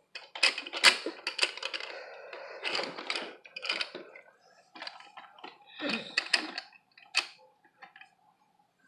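Hard plastic toys knocking and clattering: a string of irregular clicks and knocks, with a faint steady tone in the last couple of seconds.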